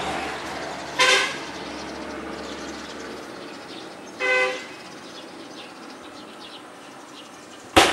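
Vehicle horn giving two short toots, about a second in and again around four seconds in, over the fading noise of passing traffic. A sharp click near the end.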